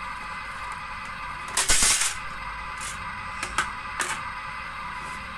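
Plastic toy clicking and knocking: a louder clatter about a second and a half in, then a few single clicks, over a steady high hum.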